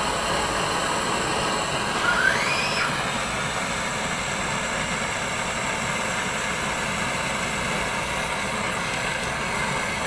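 Gas brazing torch burning with a steady hiss while it heats a copper refrigerant pipe joint to unbraze it. There is a brief rising squeak about two seconds in.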